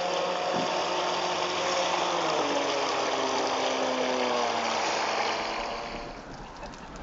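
Motor of a radio-controlled model RNLI lifeboat running at speed over water hiss. The pitch of its whine sinks gradually, and it fades out about six seconds in.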